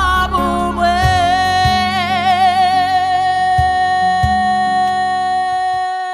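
Gospel song: a singer holds one long note with vibrato over bass-heavy band accompaniment. The band drops out near the end while the note carries on.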